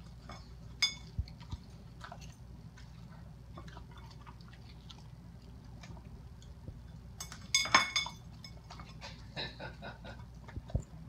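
A dog chewing and licking a bacon cheeseburger off a plate, with scattered clicks of the plate clinking against the tile floor and a louder clatter of the plate about three-quarters of the way through.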